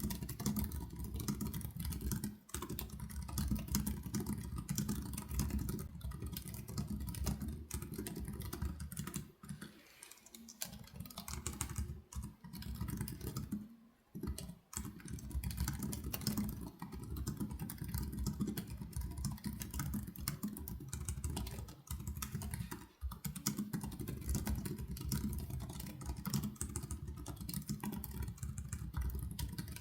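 Continuous fast typing on the Freeflow Acorn UX Flat Max, a full-metal ultra-slim keyboard, its keys clicking in rapid runs broken by a few brief pauses.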